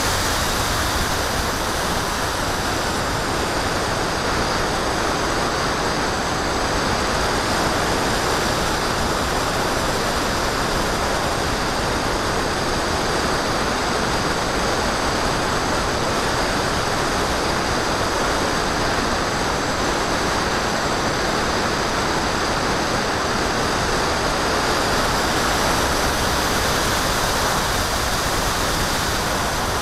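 Steady rush of wind over the onboard camera's microphone on a Phantom FX61 flying wing in flight, with the faint high whine of its electric motor and propeller, which dips slightly in pitch a few seconds in and rises again near the end.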